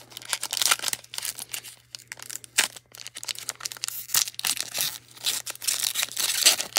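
Foil wrapper of a Panini Donruss basketball card pack being torn open and peeled back by gloved hands: a run of crackling, crinkling rips.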